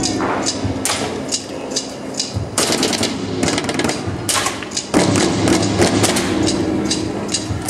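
Stage-show gunfire: irregular runs of sharp shots, several a second, with short lulls, over a low steady hum.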